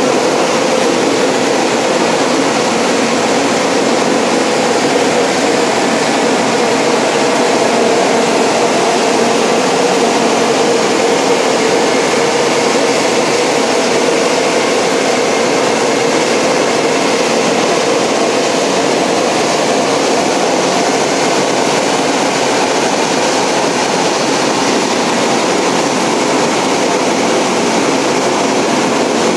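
The two large drying blowers of an automatic rollover car wash, running at full speed and blowing a steady, loud rush of air over a just-washed car. This is the drying stage after the wash, with a faint even hum under the air noise.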